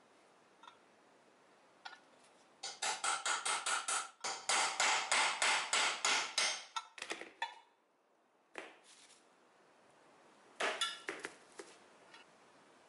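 Hammer tapping a punch in quick, even blows, about five a second, to drive the old front crankshaft seal out of a straight-six engine's timing cover. A long run of taps is followed by a single knock and then a few more taps near the end.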